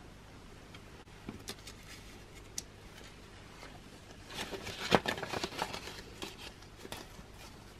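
Paper rustling and crinkling as a dollar bill is slipped into a paper cash envelope, with a few light taps. It is faint at first and gets busier about four seconds in, with the sharpest crackle at about five seconds.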